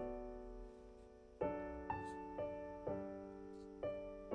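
Soft background piano music: chords struck one at a time and left to ring and fade, with a pause of over a second after the first.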